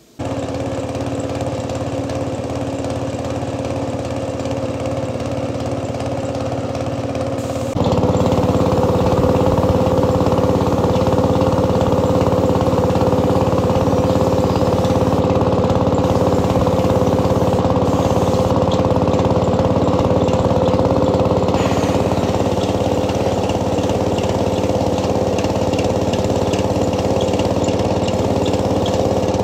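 Air compressor running steadily to feed a spray gun, its steady motor pitch holding throughout; it gets louder about eight seconds in.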